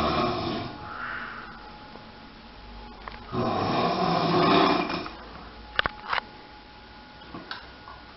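A sleeping person snoring: a breath tailing off at the start, then one long, loud snore about three seconds in lasting nearly two seconds. Two short clicks follow about six seconds in.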